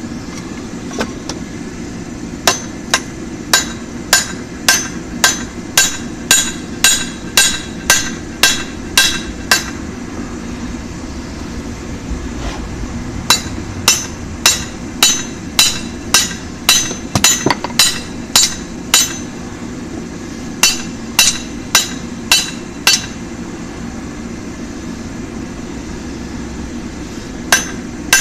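Hammer blows on hot mild steel bar on an anvil, drawing out the offset rein of a tong blank. The blows come about two a second in several runs with pauses between, each with a short metallic ring, over a steady hum.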